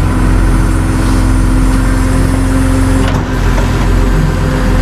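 Tow truck's engine running steadily, a low rumble with a steady hum over it. A short click about three seconds in.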